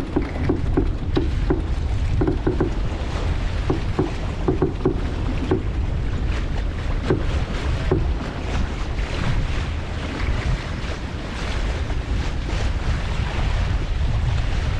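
Wind buffeting the microphone with a heavy low rumble, over water rushing and splashing along the hull of a sailboat under way. The splashing grows busier in the second half.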